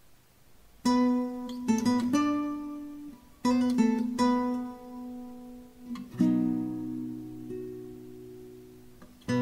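Acoustic guitar music: plucked notes and chords that ring out and slowly fade, starting about a second in and struck again every second or two.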